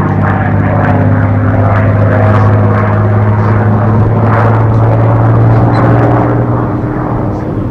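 North American P-51D Mustang's Packard Merlin V-12 engine and propeller running at high power through an aerobatic manoeuvre overhead: a loud, steady deep drone that shifts pitch slightly about four seconds in and eases a little near the end.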